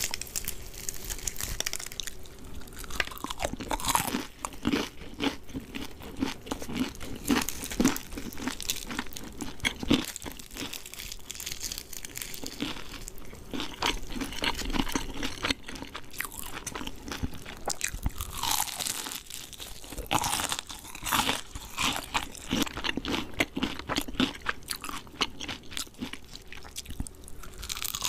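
Close-miked crunching and chewing of KFC fried chicken: the crispy breaded coating crackles with each bite, a dense run of crisp crackles throughout.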